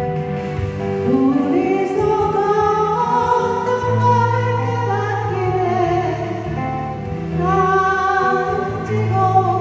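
A singer singing a slow Korean song over a recorded backing track. The voice comes in about a second in with long, gliding held notes above a steady bass.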